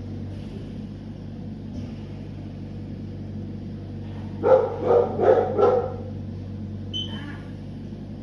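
A dog barking four times in quick succession, over a steady low hum.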